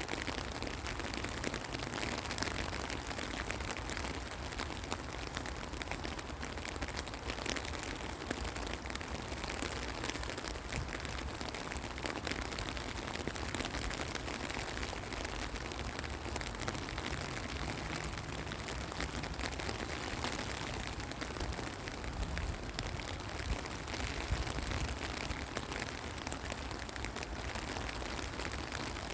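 Steady rain falling, a constant hiss with many small drop impacts pattering throughout.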